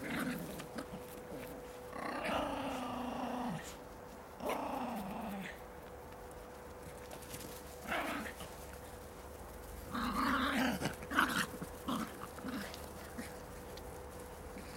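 Miniature pinschers growling in play while tugging at a toy: several short growls come and go, the loudest and most crowded about ten seconds in.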